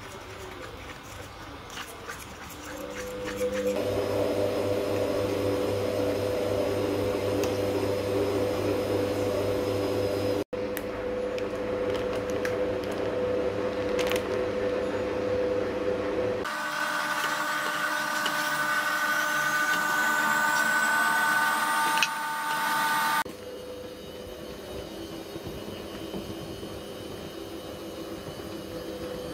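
A steady machine hum with several held tones, changing in pitch and loudness at a few sudden cuts and dropping out for an instant about a third of the way in.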